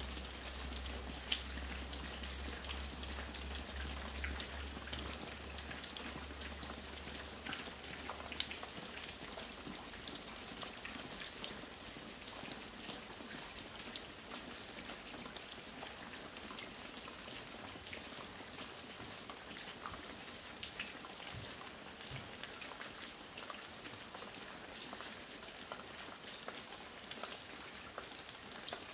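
Fine rain falling, with many separate drops ticking and pattering on surfaces. A low hum underneath fades out about eight seconds in.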